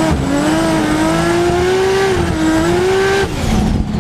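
Turbocharged Ford Barra inline-six in a Holden VL Calais running hard at high revs, its pitch wavering up and down, with a thin high whine above the engine note. About three seconds in it changes abruptly to a lower, steadier engine note.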